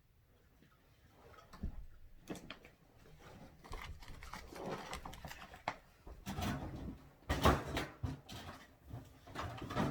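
A dog snuffling and licking up crumbs from the floor: irregular wet clicks and rustles that start after about a second and grow busier and louder in the second half.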